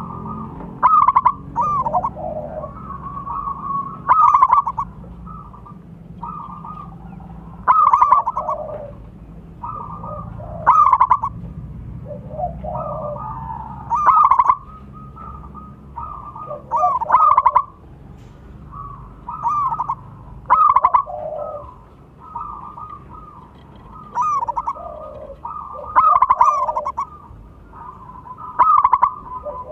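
Zebra dove (perkutut) cooing, with a loud, clear phrase about every three seconds and softer cooing between.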